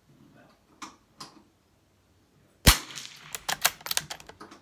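A single .22 rimfire shot from a scoped Brno Model 4 bolt-action rifle, sharp and loud, about two-thirds of the way in. It is followed by a quick run of metallic clicks as the bolt is worked open and closed.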